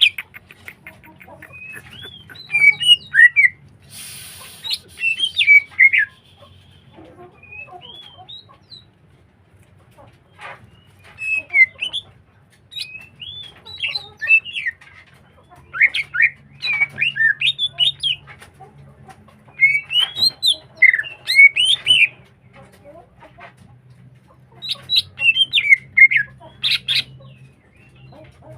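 Green leafbird (cucak hijau) singing actively: loud phrases of rapid chirps and whistled up-and-down notes, coming in bursts every few seconds with short pauses between. A brief rustling burst about four seconds in, over a faint steady low hum.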